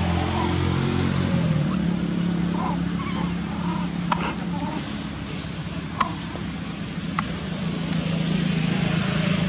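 Steady low hum of an engine running, its pitch stepping down about a second and a half in. A few sharp clicks and faint short chirps sound over it.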